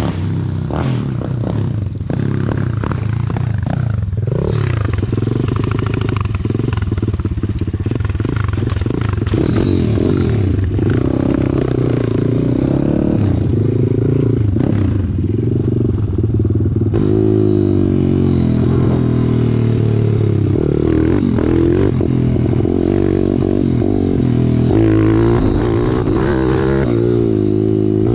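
Pit bike's small single-cylinder four-stroke engine running under way, revving up and down over and over as it is ridden.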